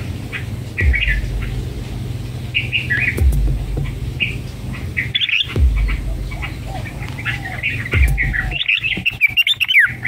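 Red-whiskered bulbuls at the nest, chirping and squawking in short high calls while the nestlings are fed. The calls come scattered, then crowd together near the end in a quick chattering run.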